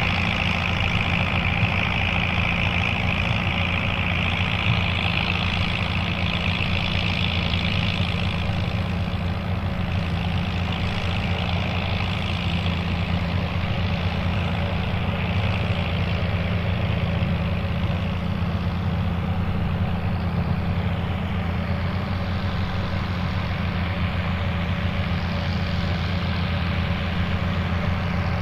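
Turbocharged Fiat 800 tractor's four-cylinder diesel running steadily under load while it drives a sugar beet top-cutter, with a high hiss over the engine that fades after about eight seconds.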